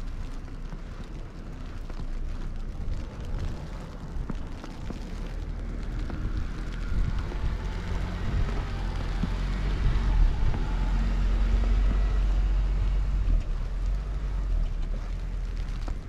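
Blizzard wind rumbling on the microphone, with a car passing along the snowy street: it swells to its loudest about ten seconds in, then fades.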